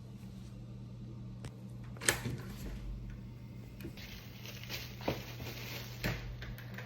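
A steady low hum with a few scattered knocks and light rustling, as of someone moving about and handling things in a small room.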